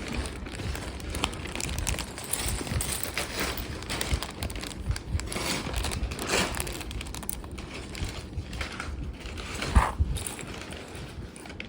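Lego bricks being handled: small plastic clicks and rattles with rustling, and one sharper click near the end.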